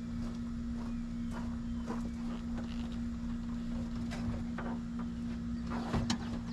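Scattered light knocks, taps and rustles of a truck's fibreboard headliner being handled through the cab, with a louder knock near the end, over a steady low hum.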